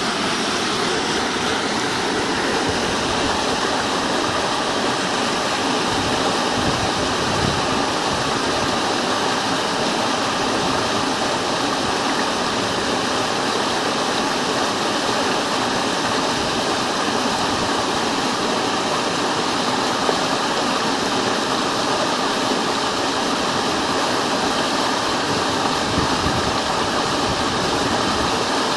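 Waterfall's rushing water, a steady, unbroken roar of falling and flowing water.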